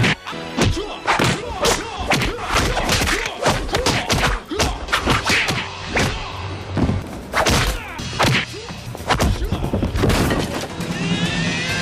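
Movie fight sound effects: a rapid run of punch, kick and body-fall impacts, thuds and whacks one after another.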